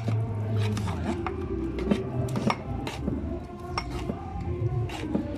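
Metal spoon stirring a thick food mixture in an aluminium cooking pot, scraping and clinking against the pot's sides and bottom over and over.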